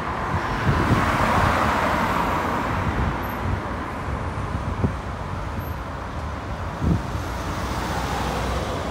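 Road traffic at a junction: car engines and tyres running as queued vehicles move off and pass close by, with a few short low thumps about one second in, near five seconds and near seven seconds.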